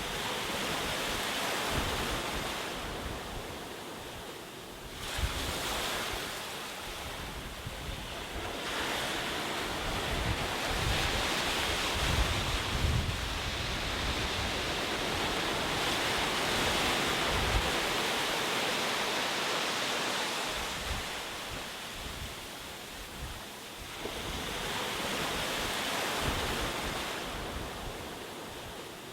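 Ocean waves breaking and washing on a shore, a continuous hiss of surf that swells and eases in several long surges, with low rumbling gusts of wind on the microphone.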